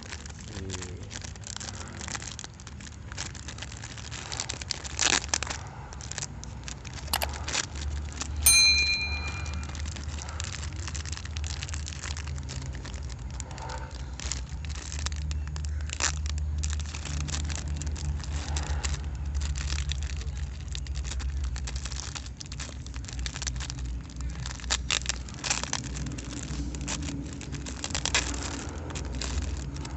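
Toy trucks being unpacked and handled: plastic packaging rustling and crinkling, with many small clicks and knocks of plastic parts. A single short ringing ping sounds about eight seconds in.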